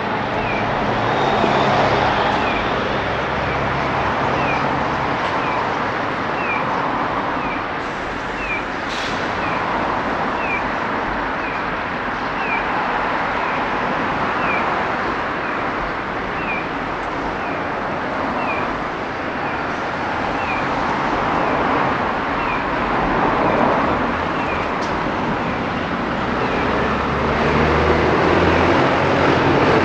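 Loud, steady din of a large flock of white-cheeked starlings chattering, swelling and easing, over traffic noise, with a short falling chirp repeating evenly a little faster than once a second.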